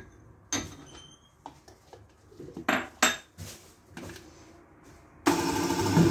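A few light clinks and knocks, then about five seconds in an electric countertop blender switches on and runs steadily with a low hum, blending strawberries and lemon juice.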